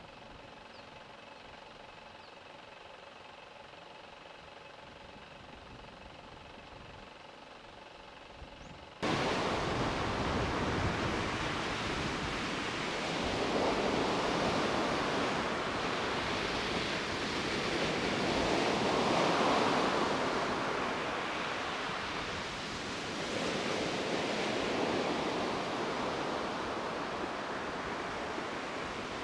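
Sea surf breaking and washing up a pebble beach, a steady rush that swells with each incoming wave every few seconds. It starts suddenly about nine seconds in, after a quiet stretch holding only a faint steady hum.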